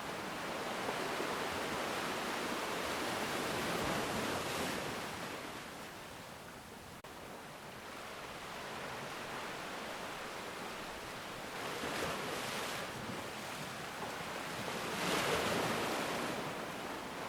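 Ocean surf: waves breaking and washing in, the rushing sound swelling and fading in turn, with a lull about seven seconds in and louder surges about twelve seconds in and near the end.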